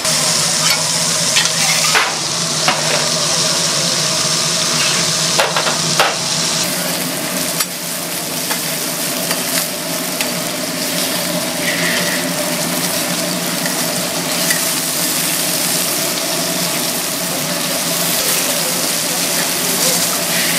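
Fish sizzling as it cooks on a hot grill, a steady hiss throughout, with a few sharp knocks of utensils in the first six seconds.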